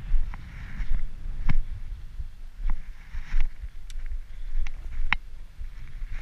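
Handling noise and footsteps while a spinning rod is carried and set up: a run of sharp, irregular clicks and knocks, about six in all, over a low rumble.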